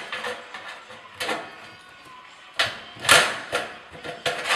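Steel stud and track clanking as a Wallboard Tools 1120 stud crimper is set on and squeezed to drive its pin through and lock them together. It is a series of sharp metallic clanks, the loudest about three seconds in.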